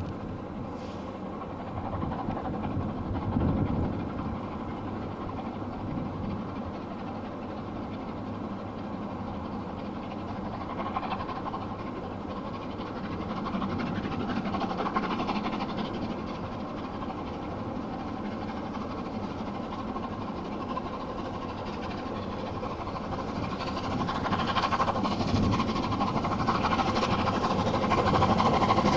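Rebuilt Bulleid Pacific steam locomotive working hard at the head of a passenger train. Its exhaust rumbles steadily and grows louder over the last few seconds as it approaches.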